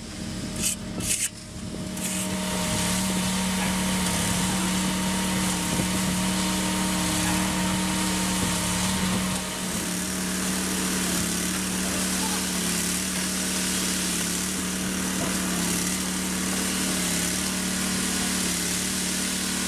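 A machine's engine running steadily with a constant low drone; its sound shifts slightly about halfway through.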